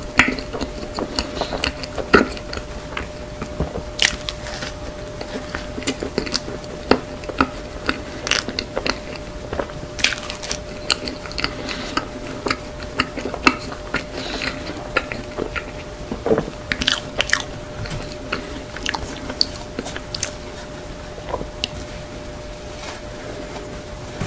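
Close-miked chewing of a cream-filled pastry with a crumbly streusel-like topping: crunchy, crackly mouth sounds with many sharp clicks, over a faint steady hum.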